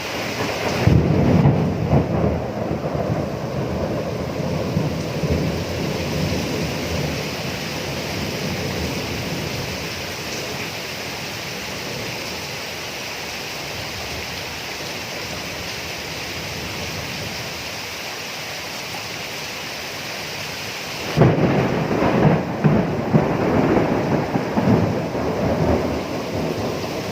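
Steady heavy rain with two rolls of thunder. The first rumble breaks about a second in and dies away over several seconds. The second breaks near the end and is still rolling as it ends.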